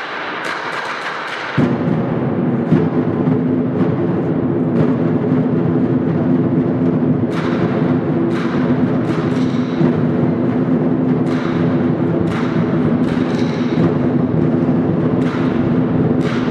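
Lion dance percussion. A large drum beats in a fast, steady roll from about a second and a half in, and cymbals crash every second or so over it.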